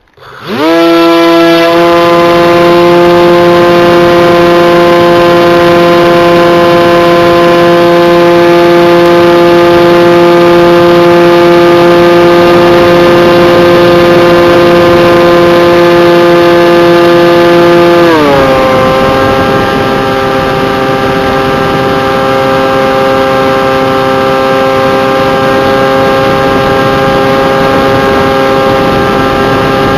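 Bixler RC plane's electric motor and pusher propeller spooling up within the first second, then running with a steady high whine; about eighteen seconds in the pitch glides down and holds lower as the throttle is eased back.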